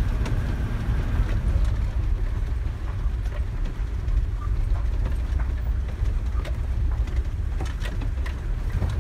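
Vehicle cabin noise while driving on a bumpy dirt road: a steady low engine and road rumble, with frequent short rattles and knocks from the ruts.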